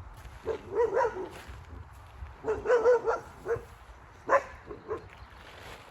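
Wolves whining in two bouts whose pitch wavers up and down, followed by a couple of short, sharp yelps.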